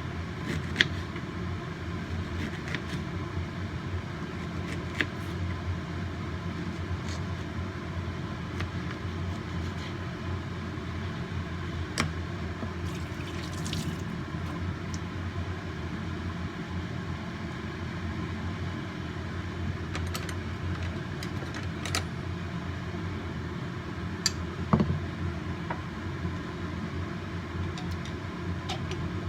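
Steady low rumble of a pot of water heating on the stove, with a handful of sharp clinks and knocks scattered through, the loudest near the end.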